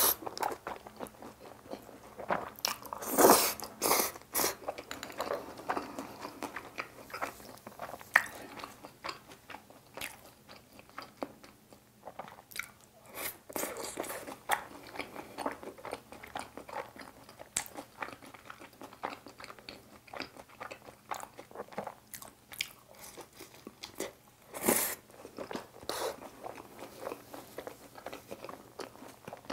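A person chewing and biting food close to the microphone: many small wet mouth clicks and crunches, with louder clusters about three seconds in and again near 25 seconds.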